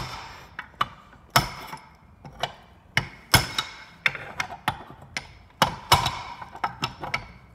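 Hammer tapping a control arm bushing out of its bore: a dozen or so sharp, ringing taps at an uneven pace, some harder than others, worked around the ring so it doesn't bind on one side.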